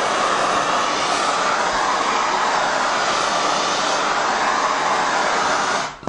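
Hand-held propane torch burning with a steady, loud hiss of gas and flame, which stops shortly before the end.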